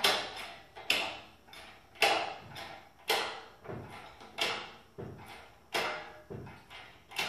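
Hydraulic engine hoist being pumped by hand to lift the engine off its mounts: a sharp clack at each stroke of the pump handle, about once a second, with fainter knocks between.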